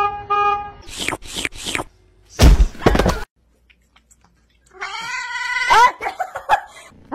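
A cat's drawn-out meow of just over a second, rising and then falling in pitch, about two-thirds of the way in. Before it come a few pulsed horn beeps at the start, some sharp knocks, and a loud thud, the loudest sound here.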